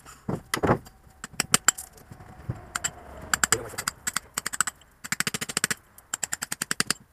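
Hammer striking a steel chisel, chipping cement render and pointing out of an old stone wall: rapid runs of sharp knocks, many a second, with a few heavier blows about half a second in.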